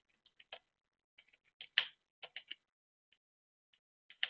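Computer keyboard typing: irregular keystroke clicks in short runs, with pauses between the runs.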